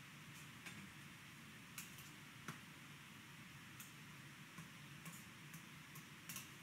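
Near silence: a steady faint hiss with a scattering of faint, short ticks.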